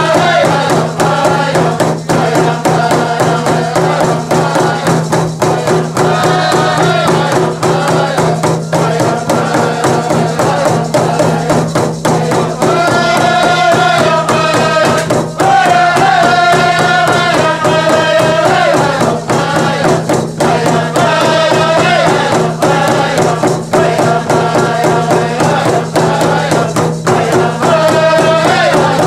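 Group of men singing a Native American handgame (stick game) song while beating hand-held frame drums in a fast, steady beat.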